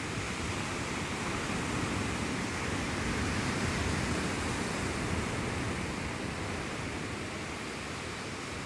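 Sea surf washing onto the shore: a steady rush that swells a little near the middle, then eases off.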